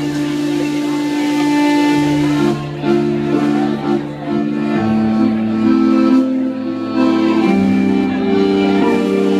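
Live indie rock band playing an instrumental passage before the vocals come in: electric guitars, bass, drums and accordion hold sustained chords over a bass line that steps to a new note every second or two.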